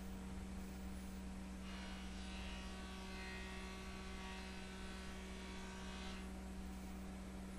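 Steady low electrical hum. A faint, steady high whine like a small motor comes in about two seconds in and stops about a second and a half before the end.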